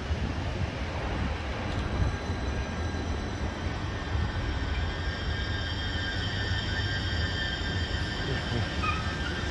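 Greater Anglia electric multiple-unit train moving slowly along the platform, with a steady low rumble. A thin high-pitched whine joins about halfway through.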